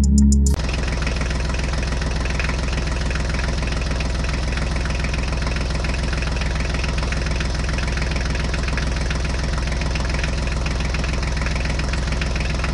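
Tractor engine idling sound, a steady diesel-style idle with an even low knock. It cuts in about half a second in and holds at one unchanging level.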